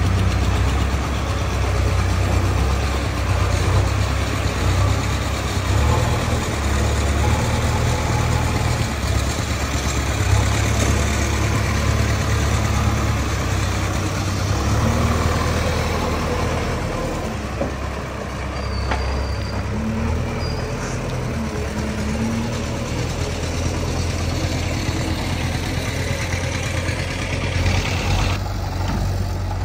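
Diesel engine of a JCB 3DX backhoe loader running steadily under shifting load while it digs and loads mud, its low rumble rising and easing; the sound changes abruptly near the end.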